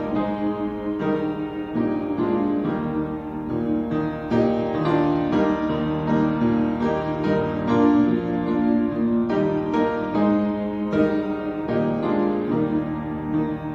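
Piano playing a slow, gentle piece, with notes struck and sustained in chords.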